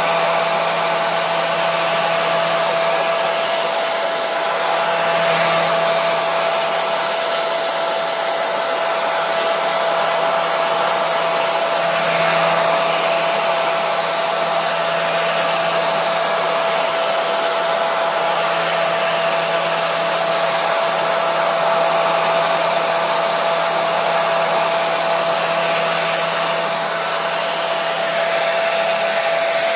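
Electric hair dryer running steadily, a continuous airy whoosh with a steady motor whine through it.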